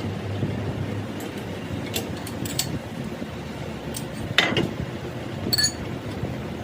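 Metal parts or tools clinking and clanking against each other, a handful of sharp ringing knocks with the loudest about four and a half seconds in, over a steady low workshop background.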